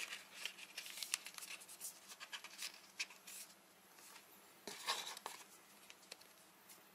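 Hands handling cardboard and paper packaging: light rustles, taps and scrapes of a small cardboard box and a paper card, with a louder rustle a little under five seconds in.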